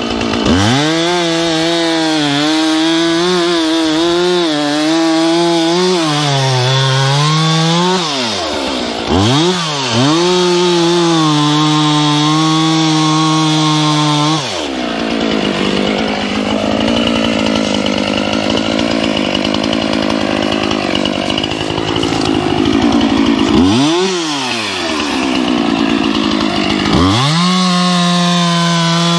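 Two-stroke chainsaw running at high revs while cutting wood, its pitch dropping and climbing back several times as it bogs in the cut or the throttle is eased and reopened. Through the middle stretch the engine note turns rougher and less clear.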